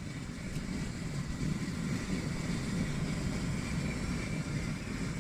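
A steady low rumble that builds over the first second or so and then holds, with a faint thin high tone above it.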